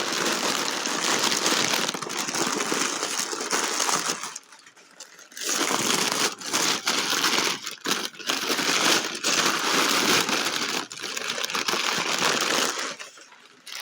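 Wrapping crinkling and crumpling as crystals are unwrapped by hand, in a long run of rustling with a brief pause about four seconds in and another near the end.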